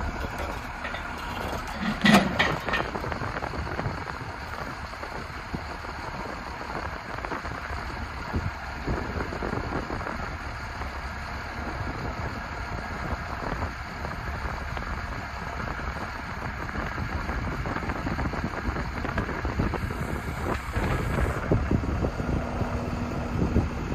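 The International 4700 truck's 5.9-litre six-cylinder diesel engine running steadily, with a low rumble, and a sharp metallic clatter about two seconds in.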